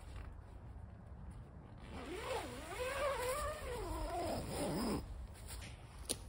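A long animal call lasting about three seconds, rising and falling in pitch, over a steady low rumble, followed by a single sharp click near the end.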